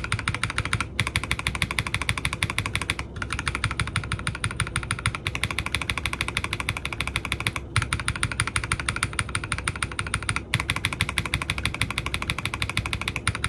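Fast continuous typing on an NJ80 mechanical keyboard with Holy Panda tactile switches, a PC plate and Cherry-profile PBT keycaps, many keystrokes a second, with a few short breaks.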